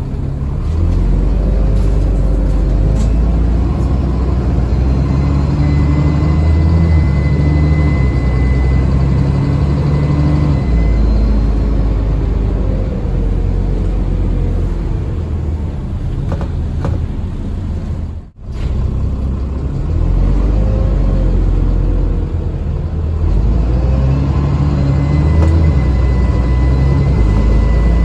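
Dennis Trident double-decker bus's diesel engine running under way, with a low drone that rises and falls with speed and a thin, high turbocharger whine over it. The sound cuts out abruptly for a split second a little after halfway.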